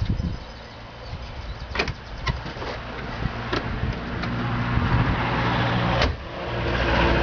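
1982 Ford Mustang engine running, its level building over several seconds, dropping off sharply about six seconds in, then rising again. A few sharp clicks are heard along the way.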